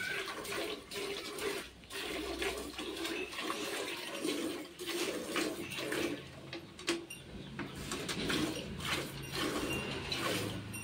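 Hand-milking a cow: streams of milk squirting from the teats into a steel bucket half full of milk, in a steady rhythm of short squirts.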